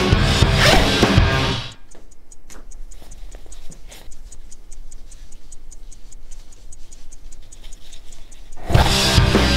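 Loud band music with drums cuts out about a second and a half in, leaving a quiet, quick, even ticking like a clock; the loud music comes back in near the end.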